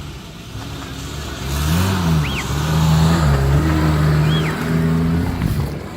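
Suzuki Samurai's 1.3-litre fuel-injected four-cylinder engine revving under load, its pitch rising and falling. It grows louder about a second and a half in and eases off near the end.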